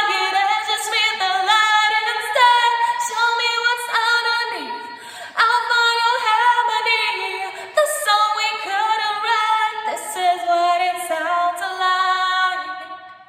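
Solo female voice singing a cappella in long held notes that glide from pitch to pitch, fading out near the end.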